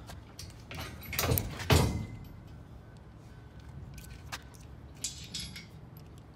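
Powder-coated steel rack parts knocking and scraping together as a bracket is worked onto a bolt, with a sharp metal clank just under two seconds in and a few lighter metal clicks later.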